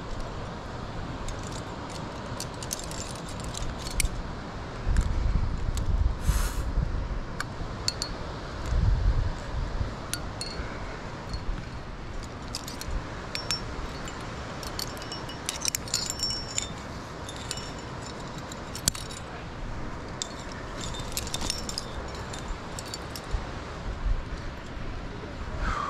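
Metal climbing gear, carabiners and protection racked on a harness, clinking and jangling in scattered bursts. A few low rumbles come and go, the loudest about five and nine seconds in.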